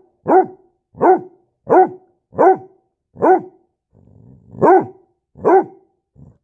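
A dog barking over and over, about one bark every 0.7 seconds, with a brief low growl between barks about four seconds in.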